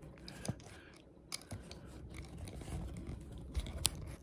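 Faint handling noise: light rubbing and shuffling with a few sharp clicks and taps, the sharpest near the end, as the recording device is touched and adjusted by hand.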